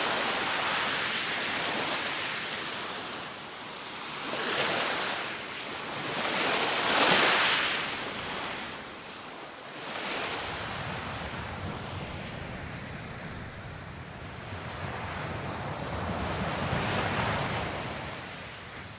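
Small waves breaking and washing up a sandy beach, the surf swelling and falling back every few seconds, loudest about seven seconds in.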